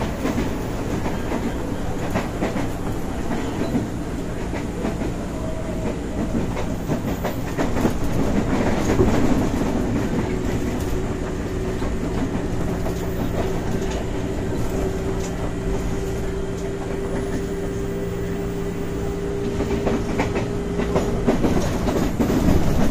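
Ex-JR 203 series electric commuter train heard from inside its motor car while running, a steady rumble of wheels on rail with clickety-clack over the track. A held hum from the traction equipment runs under it. The running noise swells about eight seconds in.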